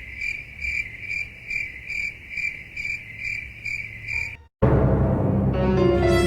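Cricket chirping, about two to three chirps a second, over a low hum. About four and a half seconds in it cuts off, and louder eerie music starts and builds.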